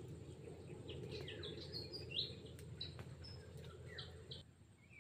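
Small songbirds chirping and twittering, a quick run of short high notes and little pitch glides, over a steady low background rumble that cuts off abruptly near the end.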